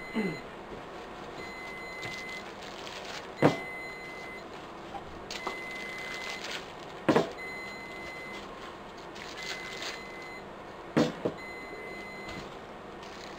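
12 V lead-acid batteries being set down into a metal UPS battery case, giving four or five sharp clunks a few seconds apart, two of them in quick succession near the end. A high electronic beep sounds throughout, repeating about every one and a half to two seconds.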